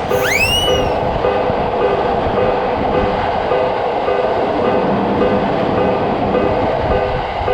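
Japanese railroad crossing alarm ringing its repeated electronic bell tone, about two rings a second, over the steady rumble of a passing train. A brief rising whistle-like tone sounds just after the start.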